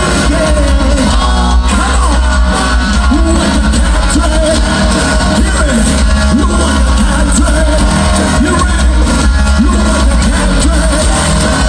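Live hard rock band playing loudly, with a male lead vocal over drums, bass and electric guitar, heard from within the audience.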